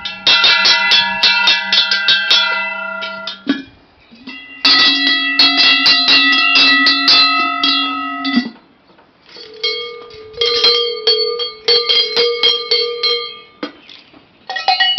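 Cow bells shaken by hand one after another, their clappers striking rapidly so each bell rings continuously for a few seconds. There are three different bells in turn with short pauses between them, each higher-pitched than the last, and a fourth bell starts near the end.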